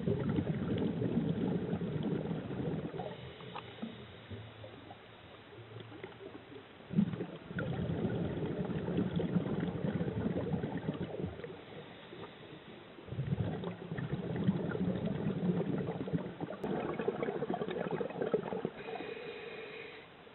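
A scuba diver's breathing through a regulator: three long rumbles of exhaled bubbles, roughly every six seconds, with quieter stretches of inhaling between them.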